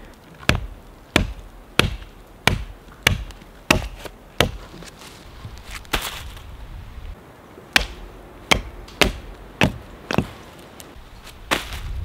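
Repeated sharp chopping blows, a little under two a second, as a blade cuts through a plucked wild turkey's wing joint. About six seconds in there is a short rustle as the severed wing drops onto dry leaves, then the chopping goes on.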